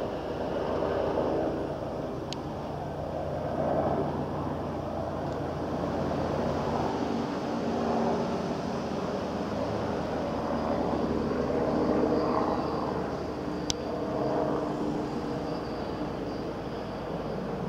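Helicopter flying overhead: a steady rotor and engine drone that swells and fades every few seconds.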